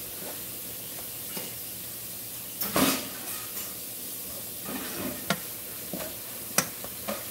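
Plantain slices frying in oil in a nonstick pan, with a steady sizzle as the slices are turned. About three seconds in the sizzle flares up loudly once, and later a few sharp clicks of a metal fork tap against the pan.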